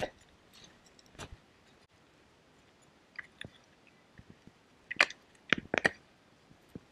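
A freerunner's shoes scuffing and striking paving and sand: a few faint clicks, then a quick run of sharp footfalls and landing impacts about five seconds in, the loudest sounds here.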